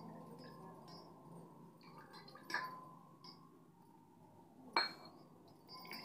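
Two light metallic clinks from a small steel cup of water, about two seconds apart, each with a short ring.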